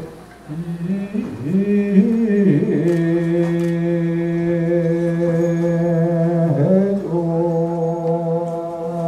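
Korean Buddhist ritual chanting by monks over microphones: a slow, drawn-out vocal line that slides up and down in its first few seconds, then holds one low note for a long stretch, dips briefly, and holds again.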